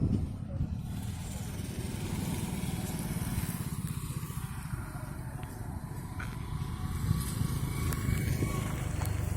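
An engine running steadily with a fast, low throb.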